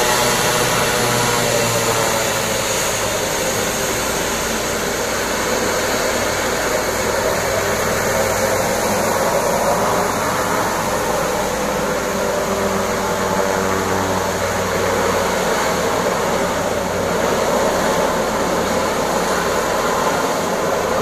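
Let L-410 twin-turboprop's engines and propellers running steadily as the aircraft taxis and turns around at the top of the runway before takeoff.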